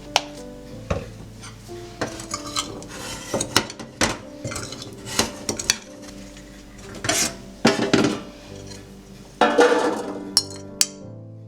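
Dishes and cutlery clattering and clinking in a string of sharp knocks, with a couple of longer scraping clatters in the second half, over soft background music.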